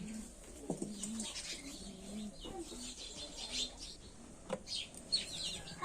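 A dove cooing, a low hoot repeated about once a second, with small birds chirping. Two sharp clicks come through, near the start and about three quarters of the way in.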